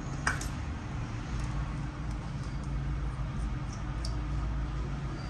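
A steady low hum with a sharp small click shortly after the start and a few faint ticks later.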